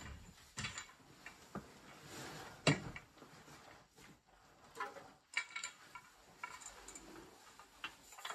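Scattered light knocks, clunks and rustles of someone climbing down through a crawl-space hatch in the floor, with one louder knock about three seconds in.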